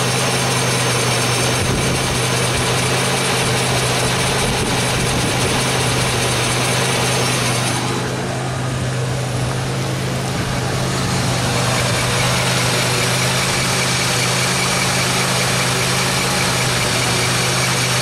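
Front wheel hub of a 2003 Pontiac Grand Am GT spinning under engine power with the car on stands: a steady running drone with grinding from the worn front hub bearing.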